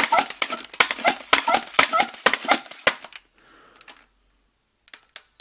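Buzzbee AirMax 6 air-pressure dart blaster being pumped in quick, even strokes, each stroke a sharp clack with a short squeaky rush of air, building pressure for the shot. The pumping stops about three seconds in, followed by a faint hiss, a pause, and a few light clicks near the end.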